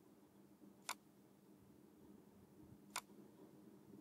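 Two sharp computer mouse clicks, about two seconds apart, over a faint steady hum and otherwise near silence.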